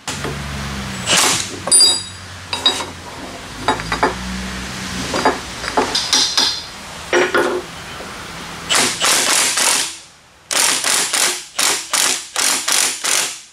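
Cordless impact wrench driving the screw of a C-frame press on a suspension control arm, working a bushing. It hammers steadily for the first few seconds, then come a few metal clanks from the press, and near the end a string of short bursts of rapid hammering.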